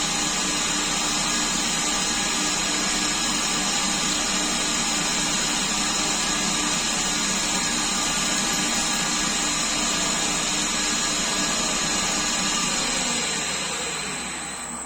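Coronet lathe converted to CNC running steadily under power, a hissing machine noise with a high whine. About 13 seconds in it spins down, falling in pitch and fading.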